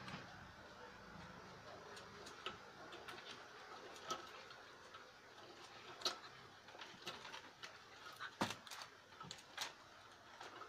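Faint, irregular clicks and light taps: a puppy's claws and paws on a concrete floor and against a mirror. The sharpest tap comes about eight and a half seconds in.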